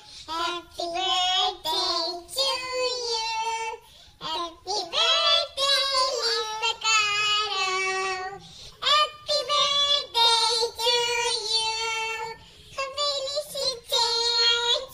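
A young child singing without accompaniment in a high voice, in short phrases of held and sliding notes with brief pauses between them.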